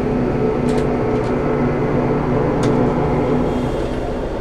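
Steady low drone of a motor ship's engines heard inside a cabin, with a few light clicks.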